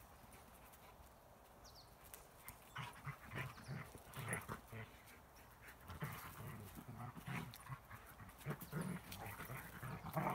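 Two dogs play-wrestling, growling and huffing in short irregular bursts that start about two seconds in and get louder near the end.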